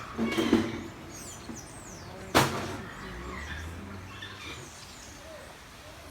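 Small birds chirping and calling in an aviary, in short scattered high notes, with a single sharp knock about two and a half seconds in.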